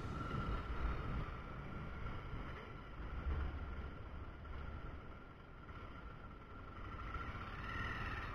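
Honda motorcycle riding in town traffic, its engine running under a low, uneven rumble of wind on the microphone, easing off a little midway.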